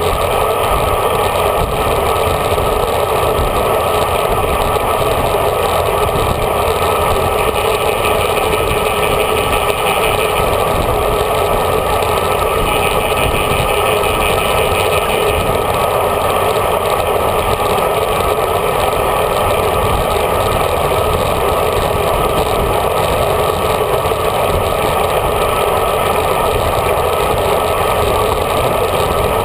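Steady wind and road noise on a handlebar-mounted old GoPro Hero HD as a road bike rides at speed in a group: an even, unbroken rush.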